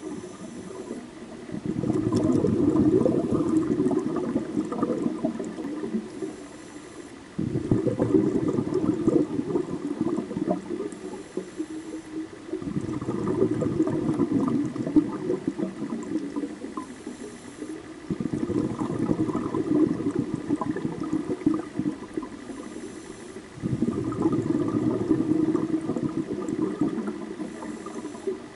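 Scuba divers breathing through their regulators, heard underwater: bursts of gurgling exhaled bubbles come about every five seconds, each lasting several seconds and fading out, with a faint hiss between them.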